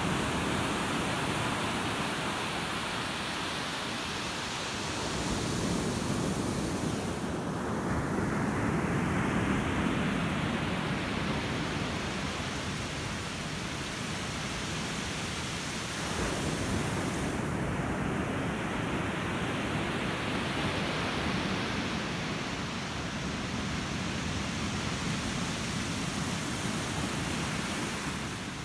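Ocean surf: a steady wash of breaking waves that swells and eases every ten seconds or so.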